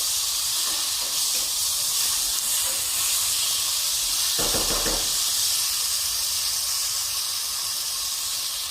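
Chicken, tomato and tomato paste frying in oil in a pan, a steady sizzle. A short, louder sound cuts in about four and a half seconds in.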